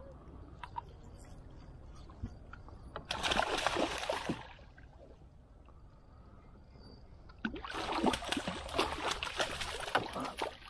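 Water splashing and sloshing on a river, in two loud bursts: one about three seconds in lasting just over a second, and a longer one from about seven and a half seconds on. A low steady rumble of moving water lies underneath.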